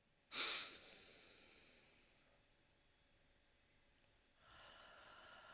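A woman takes an audible deep breath close to the microphone: a quick hissing inhale about half a second in that fades away, then near silence, then a faint, softer breath starting near the end.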